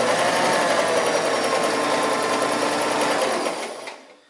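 Sears Kenmore 158 series sewing machine running at speed, its 1.2 amp motor driving a zigzag stitch through four layers of denim. It slows and stops about three and a half seconds in.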